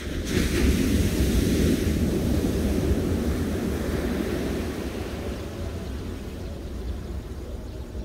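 Ocean surf breaking and washing up a sandy beach, with wind rumbling on the microphone. The surf surges in just after the start and slowly fades.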